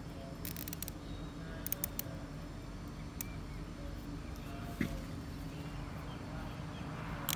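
Plastic cable ties being threaded and pulled tight around a bonsai trunk. There is a short run of small clicks about half a second in, a few more near two seconds, and single clicks later, over a steady low hum.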